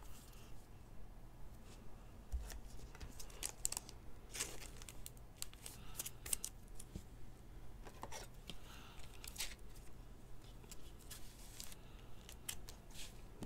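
Soft plastic card sleeve and rigid plastic top loader rustling, crinkling and scraping as a trading card is handled and slid in by hand: a string of irregular short scrapes and clicks.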